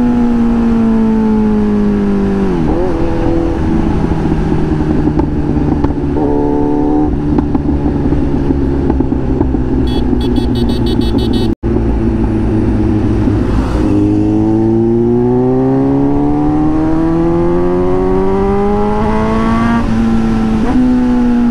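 Kawasaki Z900's inline-four through an SC Project aftermarket exhaust, heard from the rider's seat. The revs fall as the bike slows, with a gear change about three seconds in, and run low and steady. Past the halfway point the note climbs hard under acceleration, breaks at an upshift near the end, then rises again.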